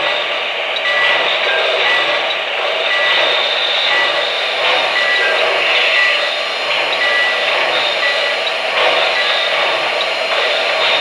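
O-gauge model train running sound: a steady hissing rush, with short high beeps repeating about every half-second to second.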